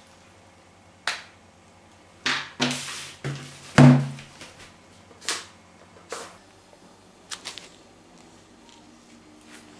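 Felt-tip marker written across a paper book cover in short scratchy strokes, the loudest about four seconds in, the later ones lighter.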